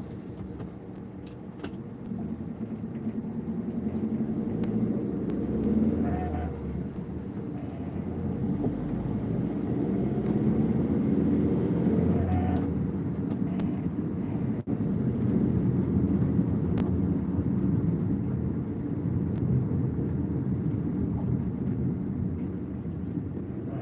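Steady low rumble of road traffic and vehicle engines, growing louder a couple of seconds in and easing off near the end.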